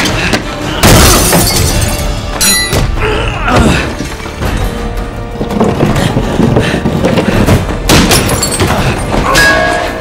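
Film score music over sword-fight sound effects: a loud crash with breaking and shattering about a second in, thuds, and another hard impact about eight seconds in, followed by ringing metallic tones.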